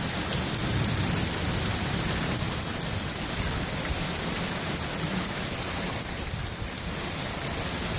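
Heavy rain pouring down steadily, with water overflowing the house gutters and falling in streams.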